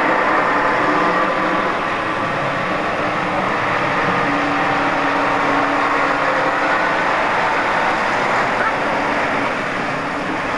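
Diesel engine of a bonneted Scania tipper truck running steadily as the truck manoeuvres slowly, with voices in the background.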